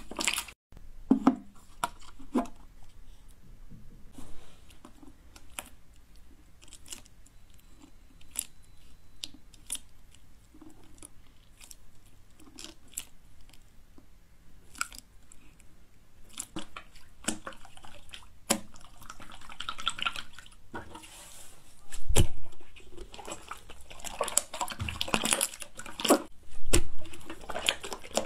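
White slime squeezed, pressed and stretched by hand: wet clicks, pops and squelches, scattered at first and thickening into denser crackling patches later, with one loud thud about two-thirds of the way through.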